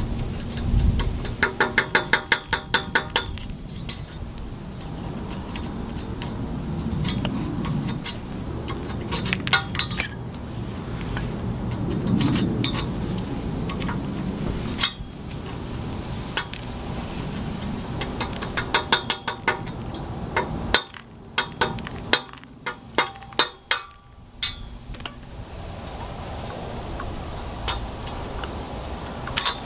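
A metal hand tool scraping and knocking rust off a rusted steel exhaust pipe, with runs of quick, ringing metal-on-metal taps, the quickest about two seconds in and more near the end.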